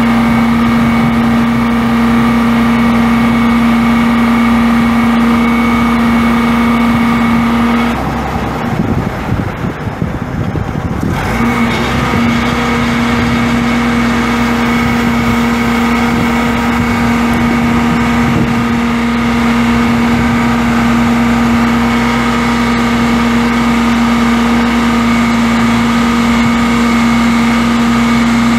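Cummins six-cylinder turbo diesel of a 1987 FWD bucket truck running steadily, with a constant whining tone over it. The sound breaks off for about three seconds near the middle and then resumes unchanged.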